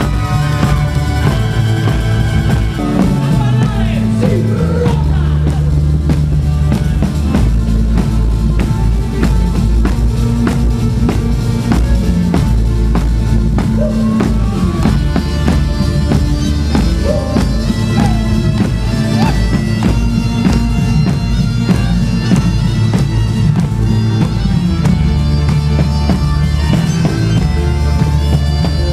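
Live pizzica (Salento tarantella) played by a folk band: accordion over bass guitar and drums, with a steady driving beat. The crowd claps along.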